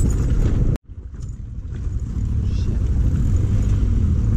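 Suzuki DR650 dual-sport motorcycle ridden over a rough dirt track: a steady low rumble of engine and riding noise. It cuts off suddenly about a second in, then swells back up to full level.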